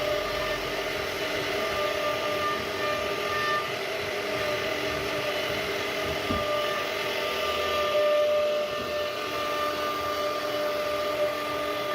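CNC router spindle cutting wood: a steady machine whine of several held tones over an even rush of noise, shifting slightly in pitch and strength as the cutter moves.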